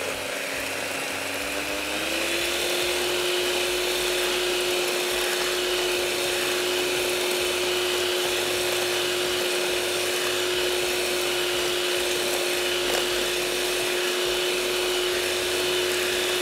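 Electric beater running in a bowl of sponge-cake batter (eggs, milk, oil and caster sugar), whipping it until the sugar grains dissolve. Its steady motor hum steps up to a higher speed about two seconds in and holds there.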